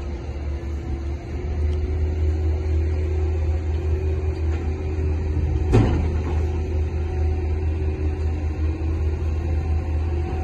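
Steady low drone of cargo-handling machinery, the crane and excavator working a ship's hold, with one sharp metallic clank a little past halfway.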